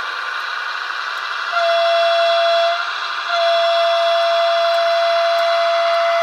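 Märklin H0 model of a LINT diesel railcar, its sound decoder sounding the horn through the model's small speaker: a short single-tone blast about a second and a half in, then a longer blast of about three seconds, over the model's steady running hum.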